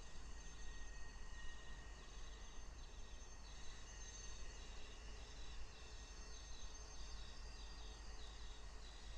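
Insects chirping outdoors: short chirps repeating about twice a second over a steady high-pitched buzzing, with a low rumble underneath.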